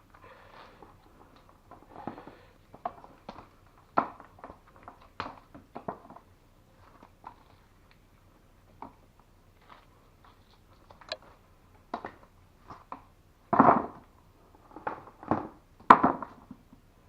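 Irregular clicks, knocks and short rustles of thick copper cable being handled and worked through a copper wire stripping tool, with two louder knocks near the end.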